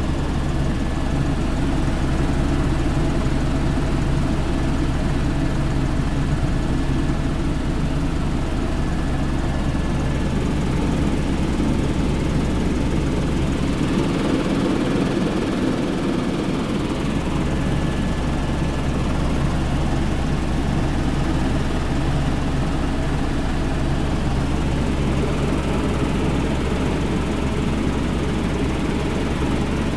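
Helicopter engine and rotor running steadily in cruise flight, heard from inside the cabin: a constant low drone with a thin steady whine above it. The deepest part of the drone drops out for a few seconds about halfway through.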